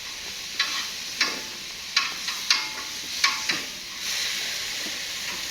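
Cooked saag being mashed in its pot: the masher knocks against the pot at an irregular pace, about once or twice a second, over a steady hiss of the cooking greens that grows louder about four seconds in.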